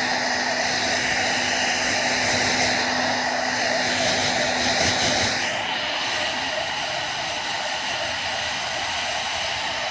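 Handheld hair dryer blowing steadily with a rushing whir and a low hum; about halfway through the hum drops out and the sound turns thinner and a little quieter.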